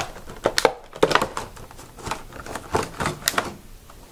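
Thin clear plastic packaging crinkling and crackling as hands pull it open, in irregular sharp crackles that thin out near the end.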